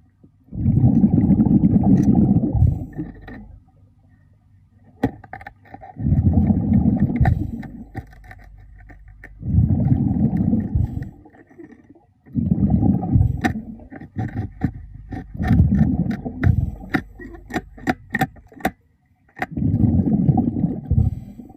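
A diver breathing underwater: the exhaled bubbles come as loud, low bubbling bursts every three to four seconds, with quieter breaths between them. Sharp clicks and taps are scattered through the gaps.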